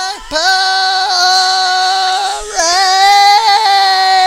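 A man belting a high, strained note, held long with a slight waver and broken twice by short gaps, on the song's final line.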